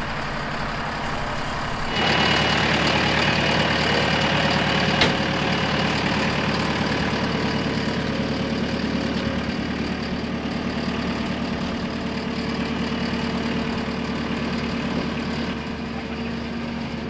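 Diesel engine of a JCB compact track loader running steadily at idle while its boom holds up a raised wall, louder from about two seconds in. A single sharp click about five seconds in.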